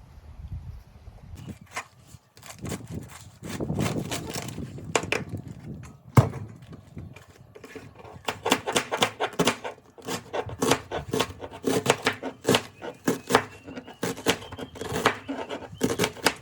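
A series of knocks on wood, scattered at first, then settling about halfway through into a steady rhythm of roughly two strokes a second.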